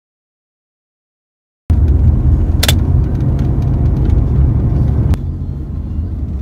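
Low, steady rumble inside a car's cabin, cutting in suddenly after a second and a half of silence, with a sharp click about a second later.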